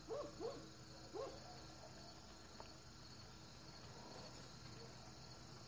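Faint crickets chirring steadily, with three short soft low calls in the first second and a half.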